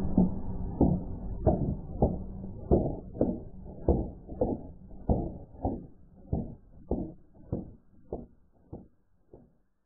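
Song audio slowed down to an extreme degree, reduced to a slow, regular string of low, muffled strokes about every 0.6 seconds. It fades steadily and dies out just before the end.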